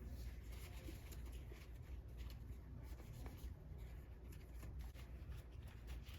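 Faint rubbing with light scratchy ticks: leftover epoxy being wiped off the laptop with alcohol. A low hum runs underneath.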